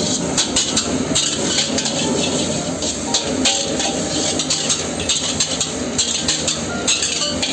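Metal ladle scraping and knocking against an iron wok as fried rice is stirred and tossed over a gas burner: irregular clanks and scrapes over a steady noise.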